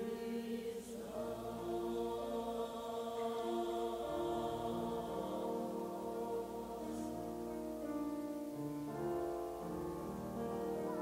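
Church choir of mixed men's and women's voices singing a slow piece in long held chords that change every second or so.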